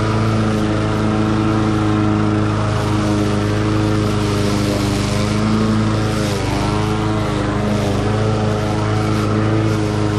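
Cub Cadet SC500K walk-behind mower's 173cc engine running steadily as it cuts thick, tall grass. Its pitch dips briefly about six seconds in, then recovers.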